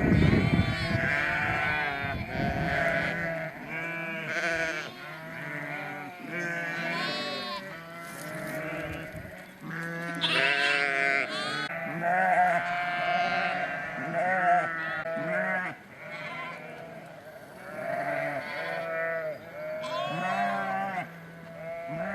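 A flock of ewes and lambs bleating continuously, with many overlapping calls at different pitches. There is a brief low rumble in the first second or so.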